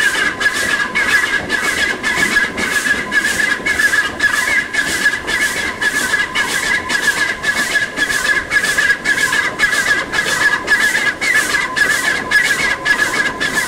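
Exhaust beats of a 950 mm-gauge 2-6-2T steam tank engine working hard up a steep climb, at a steady rhythm of about three beats a second, heard from an open window of the train. A continuous wavering high squeal runs under the beats.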